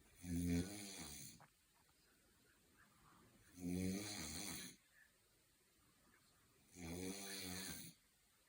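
A sleeper snoring: three snores, each about a second long, coming roughly every three seconds with quiet between.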